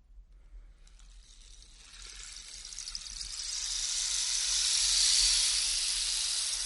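Whoosh sound effect: a long airy rush of noise that slowly swells, peaks about five seconds in, then fades away.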